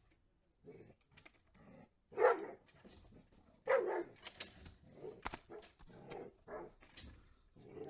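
A puppy barking in short separate bursts, loudest about two seconds and about four seconds in, with a few sharp knocks among them.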